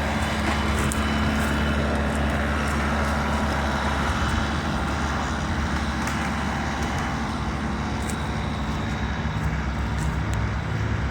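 Vehicle engine running steadily at an even speed, close to the microphone, with a few faint ticks over it.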